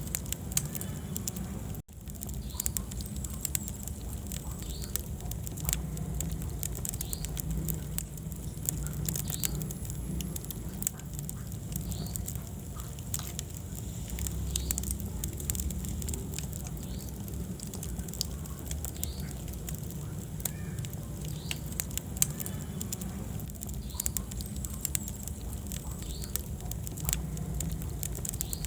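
Wood fire burning in a fireplace: a steady low rumble of flames with a constant scatter of small sharp crackles and pops. The sound cuts out for an instant about two seconds in.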